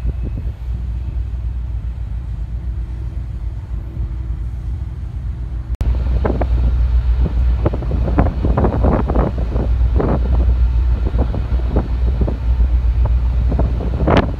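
Wind buffeting the microphone over a steady low rumble from the ferry's engines, heard on the open deck. After a cut about six seconds in, the wind gusts are louder and come in rapid bursts.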